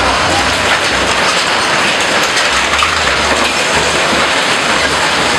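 Continuous clattering and crunching of sheet metal and debris as a heavy machine tears down a metal-clad building, with a low rumble underneath.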